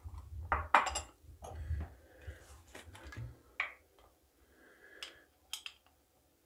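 Light kitchen handling sounds: a few dull thumps and short clicks as a small bowl and a metal teaspoon are set down on a wooden cutting board and an olive-oil bottle is uncapped. The sounds are scattered and sparse, trailing off in the last second or so.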